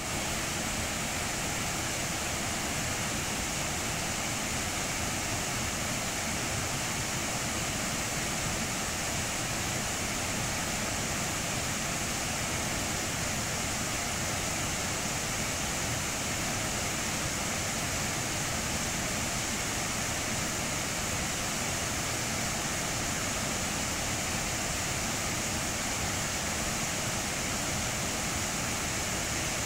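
Water rushing over the boulders of stream rapids: a steady roar of white water.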